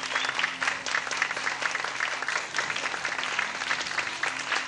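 Spectators clapping steadily, a dense, even applause.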